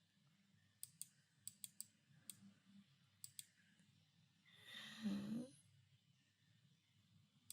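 About eight sharp, light clicks in quick succession over the first three or four seconds, then a brief hummed voice sound about five seconds in.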